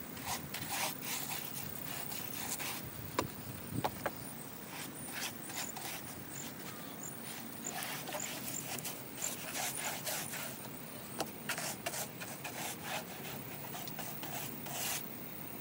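A paintbrush rubbing wet paint onto rough wooden stair boards in a series of short, irregular scratchy strokes.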